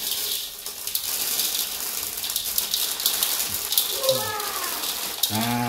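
Dried popcorn kernels poured from a bag into a hot aluminium wok, many small clicks as they land on the metal over a steady sizzle of melted fat.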